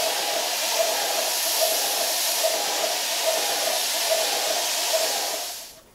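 Airless spray gun spraying sprayable filler: a steady, loud hiss from the spray tip with a slight pulse about every 0.8 seconds. It stops near the end.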